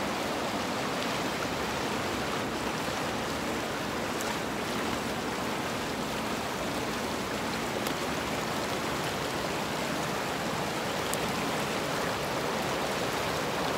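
Fast mountain stream rushing over rocks in whitewater rapids: a steady, unbroken rush of water.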